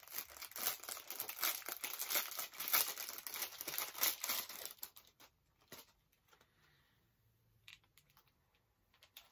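Plastic wrapper crinkling and tearing as it is pulled open by hand to free a lanyard. The crinkling is dense for about five seconds, then stops, leaving only a few faint rustles.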